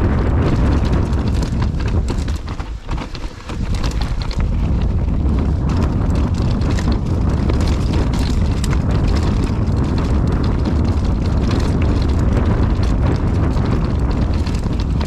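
Mountain bike descending a rough, rocky trail: wind rushing over the microphone, tyres rumbling, and the bike rattling and knocking over rocks and roots. It eases briefly about three seconds in.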